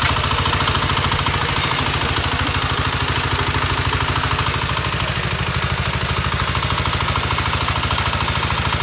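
Kentavr 1010E walk-behind tractor's single-cylinder diesel engine running steadily at idle, with a fast, even chugging.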